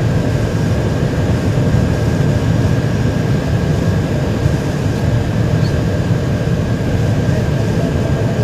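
Steady rush of airflow and engine noise inside an Airbus A321 cockpit on short final approach, with a thin steady whine above it.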